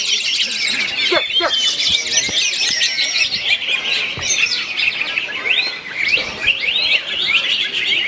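Several caged cucak hijau (greater green leafbirds) singing at once: a dense, unbroken chatter of fast trills, whistles and quick rising and falling notes.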